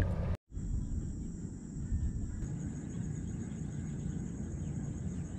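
Insects trilling in one steady high note over low outdoor background noise, after a brief drop-out just after the start.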